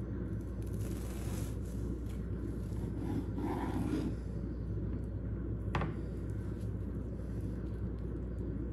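Serrated bread knife sawing through the crisp toasted crust of a grilled cheese sandwich on a wooden cutting board, a rough scraping over the first few seconds. A single sharp knock comes about six seconds in, over a steady low hum.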